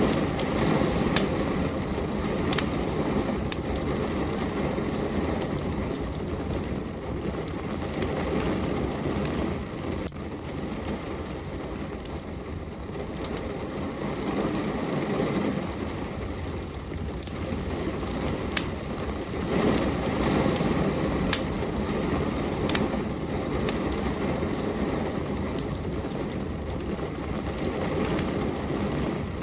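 Steady rain with a wood fire burning, its crackle giving sharp pops every second or few at irregular intervals over the continuous hiss.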